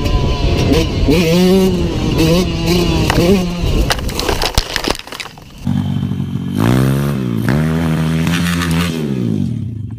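Dirt-bike engine revving hard in uneven bursts as the throttle is held open, then clattering and scraping as the bike crashes into brush about four seconds in. After a cut, another dirt bike revs sharply up and down while it drags its rider across the ground: a whiskey throttle, the rider's grip jamming the throttle open.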